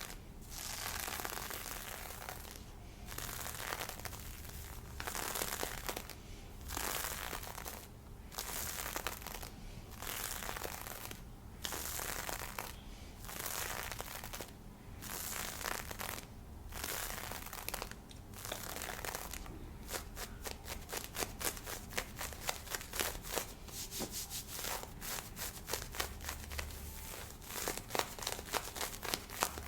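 Lace fishnet stockings being scratched and rubbed close to a binaural microphone: long hissy strokes about a second apart, turning into quick, rapid scratches about two-thirds of the way in.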